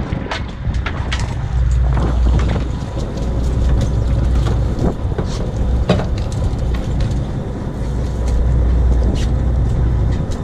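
Sport-fishing boat's engine running with a heavy, steady low rumble and a faint whine. Scattered knocks and clicks sound from the boat deck.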